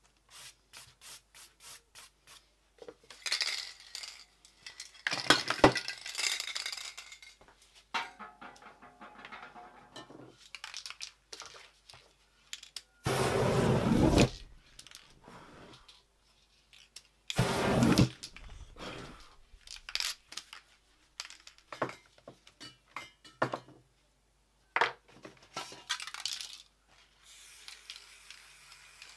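Spray paint art at work: an aerosol spray can rattling as it is shaken, short hisses of paint spraying, and clinks of cans being handled. The loudest sounds are two bursts of flame about a second long, swept across the painting about 13 s and 17 s in.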